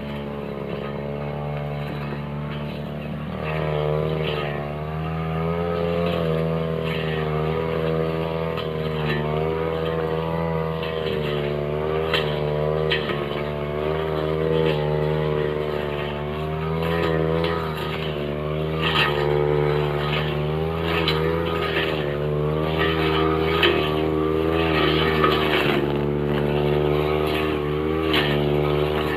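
Backpack brush cutter engine running at high revs, its pitch picking up about three seconds in and then sagging and recovering as the steel blade cuts through grass, woody stems and vines. Frequent sharp ticks come from the blade striking stems.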